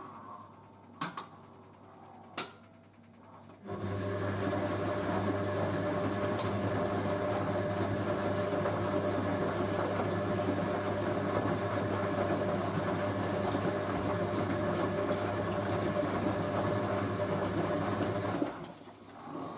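Hoover A3060 washing machine during its final rinse with conditioner: two sharp clicks, then a steady mechanical hum starts a few seconds in, runs at one pitch for about fifteen seconds and stops near the end.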